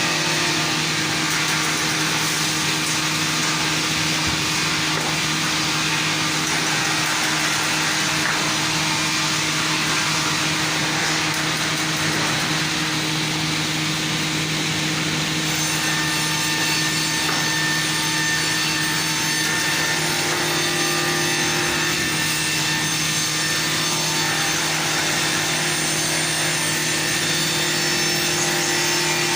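Circular-saw beam mill running and sawing wood: a steady motor hum under a continuous rushing sawing noise, which gets brighter in the treble about halfway through.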